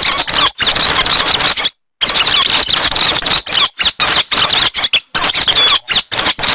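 Lure recording of hét xoan bird calls: dense, rapid, high squeaky chattering over a hissy background, broken by several abrupt short silences.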